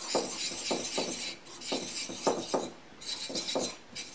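Steel planer knife rubbed back and forth flat on a Japanese water stone: a gritty scraping in three strokes of about a second each, split by short pauses. The knife is being honed to take off the burr left by grinding.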